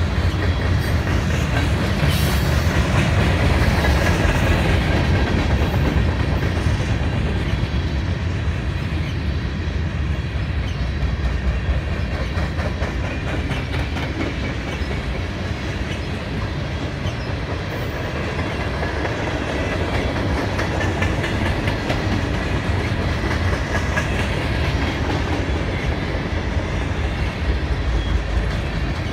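Freight cars of a CSX mixed freight train rolling past close by, covered hoppers, tank cars and autoracks: a steady heavy rumble with the rapid clickety-clack of steel wheels on the rails.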